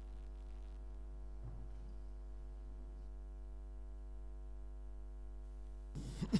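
Steady electrical mains hum and buzz: a low hum with a ladder of higher buzzing overtones. Near the end it is broken by a few knocks and rustles.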